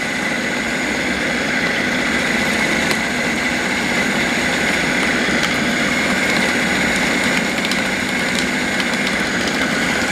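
Electric blender motor running steadily at speed, grinding minced beef and ice into meatball paste: a constant whine over a rough churning sound.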